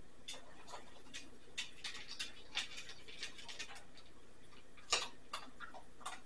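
A pet conure nibbling food held in its foot: irregular small beak clicks and crunches, one louder crunch about five seconds in.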